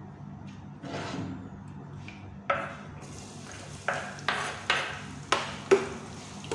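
Chopped garlic hitting hot oil in a nonstick frying pan, starting a steady sizzle about halfway through. Over it come about five sharp knocks and clinks as a metal spoon scrapes the garlic off a wooden cutting board against the pan and starts stirring.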